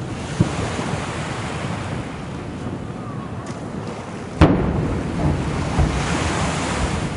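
Distant firework shells bursting with a few sharp booms, the loudest about four and a half seconds in, over steady wind noise on the microphone.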